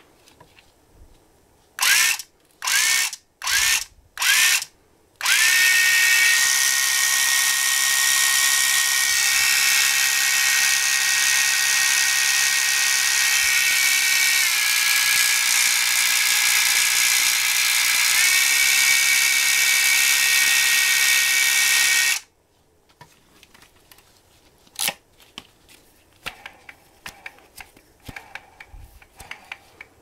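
Miya Epoch 800 electric fishing reel's motor driving the spool: four short bursts, then a steady high whine lasting about seventeen seconds. The pitch steps lower partway through and then back up. After it stops there are only light handling clicks.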